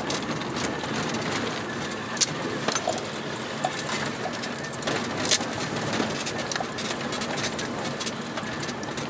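Vehicle cabin noise while driving on a rough dirt road: a steady rumble of engine and tyres, with sharp knocks and rattles from bumps, the loudest about two and five seconds in.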